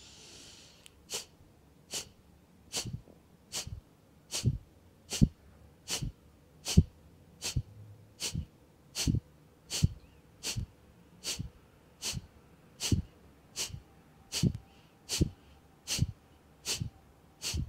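A woman breathing qi hua (fire breath): a soft inhale, then a steady run of about twenty short, forceful exhales, a little over one a second. Each exhale is pushed out by snapping the belly in toward the spine.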